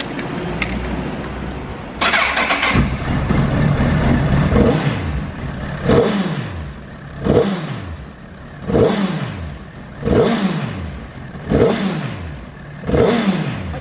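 Honda CBR1000RR (SC57) inline-four with a TSR slip-on exhaust started with the key, catching about two seconds in and settling to idle, then blipped with the throttle seven times, about one and a half seconds apart, each rev rising quickly and falling back to idle. The engine revs up cleanly.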